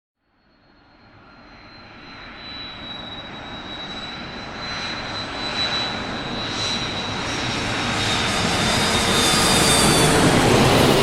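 Airplane approaching on a flyby: it fades in from silence and grows steadily louder, a rushing engine noise with a high whine that slides slowly lower, loudest near the end as it passes close.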